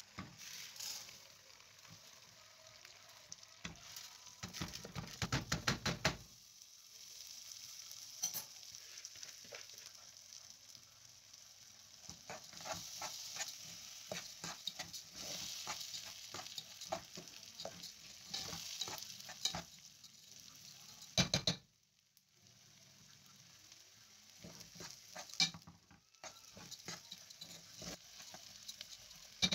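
Dry red lentils and rice tipped into a metal pot of hot melted butter, with a dense rattle of grains about five seconds in. They are then stirred with a spoon: grains scraping and clicking against the pot over a light sizzle as they toast in the butter.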